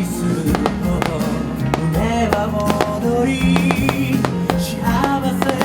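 Pop song played over a loudspeaker in an instrumental passage with guitar, with fireworks bangs and cracks sounding among the music at irregular moments.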